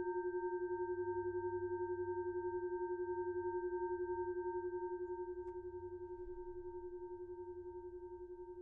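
A boxing bell's ring hanging on and slowly dying away: one steady low tone with fainter higher overtones, wavering in a fast, even pulse. It drops a little in loudness about five seconds in.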